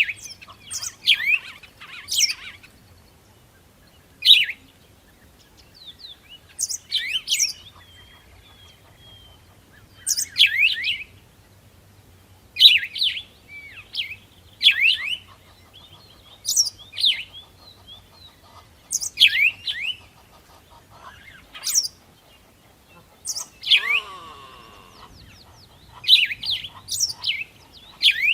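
Songbirds chirping: short, sharp phrases of quick downward-sweeping notes, repeated every second or two. Near the end comes a lower, longer call lasting about a second.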